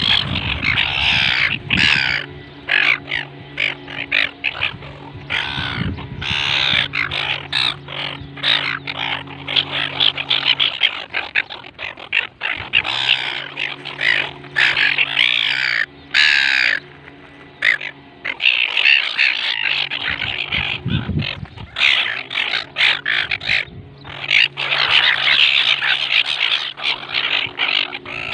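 A flock of gulls calling over one another in a dense, continuous chorus of harsh cries. Underneath runs a steady low hum that drops out a couple of times.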